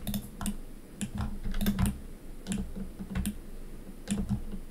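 Computer keyboard keys and mouse buttons clicking in irregular short taps, often in quick pairs, about three or four a second, as Blender shortcuts are pressed.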